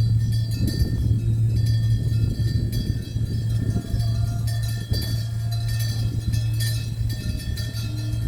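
Korean Buddhist temple ritual percussion played in a fast, irregular flurry of strikes. Metallic ringing carries through the strikes, over a steady low drone.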